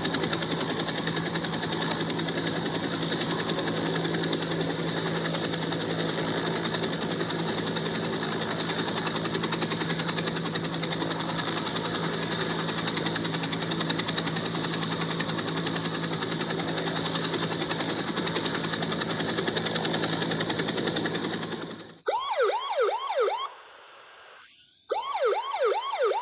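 Helicopter running steadily, a dense engine and blade noise with a fast regular rotor chop, which cuts off about 22 seconds in. Then a police car siren yelps in two short bursts of rapid rising-and-falling sweeps with a brief pause between them.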